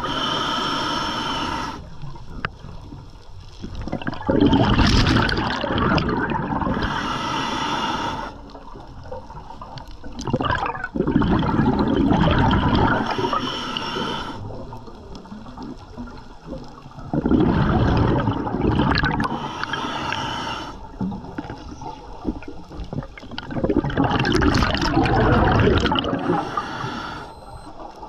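Scuba diver breathing through a regulator underwater: a hissing inhale through the demand valve, then the rumble of exhaled bubbles, in a slow cycle of about six seconds, repeated through five breaths.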